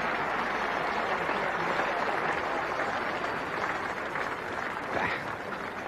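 Cricket crowd applauding a dismissed batsman as he walks off after a century, steady at first and then fading over the last couple of seconds. A single knock sounds near the end.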